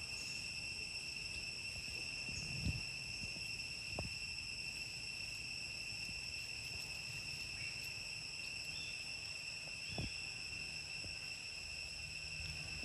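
Steady high-pitched drone of insects, unbroken throughout, with a few soft low thumps.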